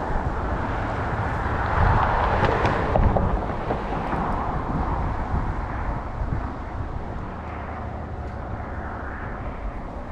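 Strong wind buffeting the microphone, a steady rumbling rush, with a louder wash of noise swelling between about one and four seconds in.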